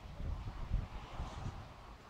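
Storm wind buffeting the microphone in irregular low rumbles, with a faint hiss behind it.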